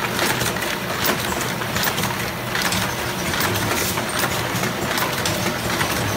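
Automatic ointment cartoning machine running: a dense, steady clatter of clicks and knocks from its conveyor and carton-handling mechanism over a low mechanical hum.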